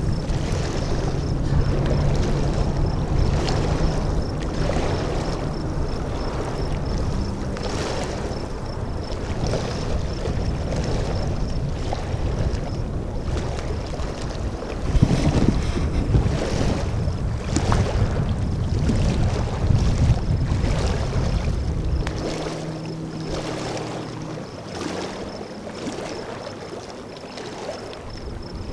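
Wind rumbling on the microphone over water, with soft splashes and lapping every second or so. The wind rumble eases near the end.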